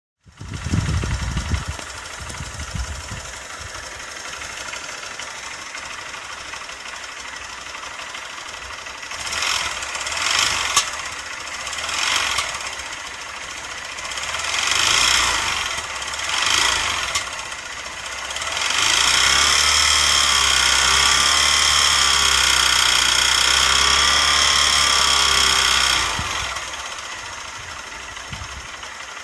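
Honda CBF125 single-cylinder four-stroke engine idling, blipped up in short revs a few times and then held at higher revs for several seconds before dropping back to idle. The engine makes a noise that a Honda garage judged abnormal.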